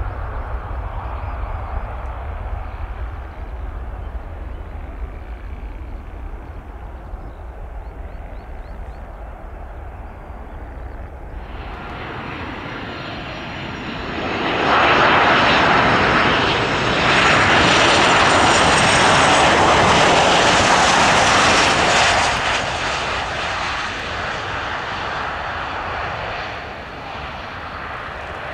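Boeing 737-800 jet engines. At first there is a steady low rumble from a departing jet in the distance. About eleven seconds in it changes abruptly to a landing 737-800 coming in close: a rushing noise with a high whine builds up, stays loud for several seconds, then dies down.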